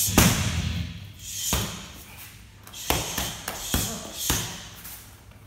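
Kicks and punches landing on handheld striking pads and focus mitts: a series of sharp thuds and slaps at uneven intervals, the first, about a quarter second in, the loudest.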